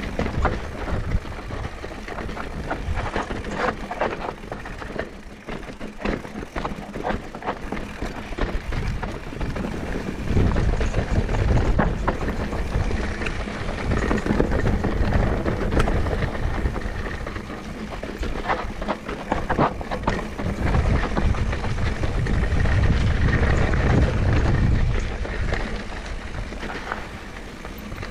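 Mountain bike riding a trail: tyres rolling over dirt, with the bike rattling and clattering over bumps in quick irregular knocks. Low wind rumble on the helmet-mounted camera's microphone swells up several times.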